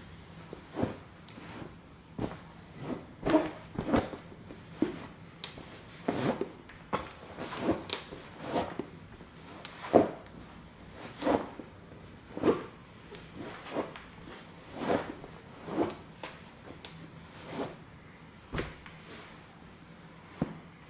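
Nike Air Force 1 sneakers stomping and treading on a plush stuffed dinosaur lying on a wooden floor: irregular dull thuds and scuffs, roughly one every half second to a second, the loudest about ten seconds in.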